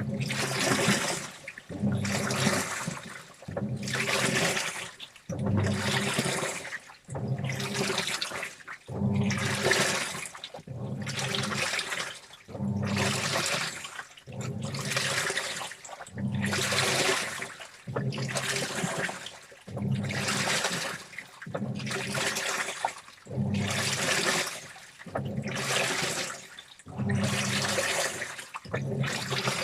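Washing machine in its wash cycle: the drum turns in short strokes, roughly one every second and a half, sloshing water and wet clothes, with the motor humming under each stroke.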